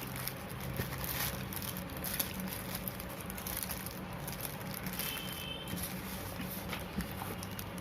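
Faint handling sounds of a pair of socks being unfolded, light rustles and a few small taps, over a steady low hum.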